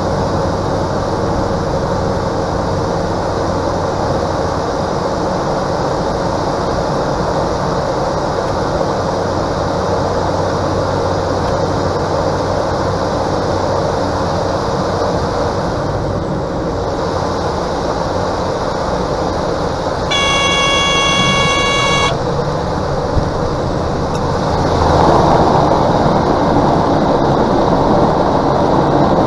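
Cessna 208 Caravan's PT6A turboprop engine and propeller running steadily with rushing wind during the final approach and landing. About two-thirds of the way through, a steady warning horn sounds for about two seconds: the stall warning in the landing flare. A few seconds later the noise grows louder as the aircraft touches down and rolls along the runway.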